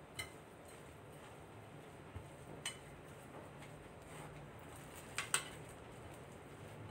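A metal fork clinking a few times against a ceramic bowl while ground chicken is mixed in it, the loudest a quick pair of clinks about five seconds in, over a faint low hum.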